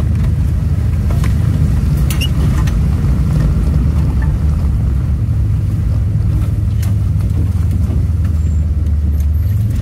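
Steady low drone of an AWD minivan's engine and tyres as it drives slowly over a rough dirt track, heard from inside the cab, with a few faint knocks about two seconds in.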